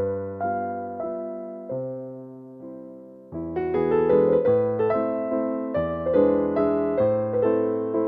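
Background piano music: notes struck and left to fade, thinning out and growing quieter about two seconds in, then returning fuller and louder just after three seconds.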